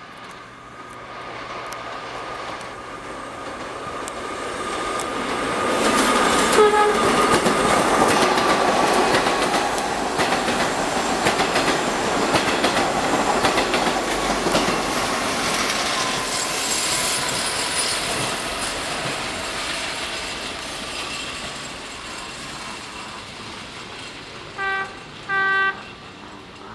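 A train of vintage New York City subway cars passing at speed: wheels clacking over rail joints with a thin whine that slowly falls in pitch, building to a peak and then fading as the train moves away. Near the end, two short horn blasts.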